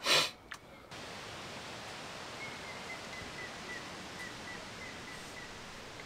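Steady rustling forest ambience, with a small bird giving a run of about ten short, evenly spaced high notes in the middle. A brief loud rush of noise comes at the very start.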